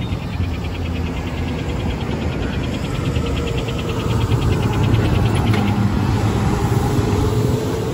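Street traffic noise with a fire engine's engine rumbling as it drives through the intersection, swelling from about four seconds in. A rapid, evenly pulsed high chirping runs over it and stops about five and a half seconds in.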